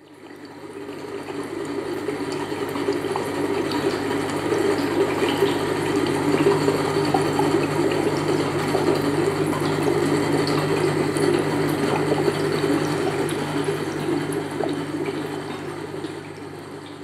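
Continuous rushing, bubbling water sound that fades in over the first couple of seconds and fades out near the end, with a steady low hum beneath it.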